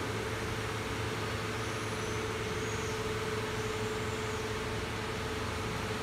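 Steady hum and hiss of factory machinery and ventilation, with a constant mid-pitched tone running through it.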